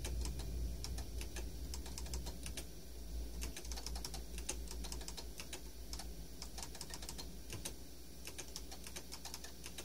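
Keys on the IBM PS/2 P70's keyboard clicking in quick, irregular taps, over a steady low hum.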